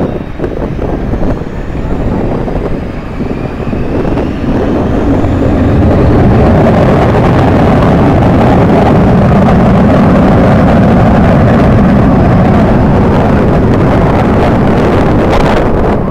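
Jet aircraft engines at high power. A faint whine rises during the first few seconds, then the noise builds to a loud, steady rush that holds to the end, with wind buffeting the microphone.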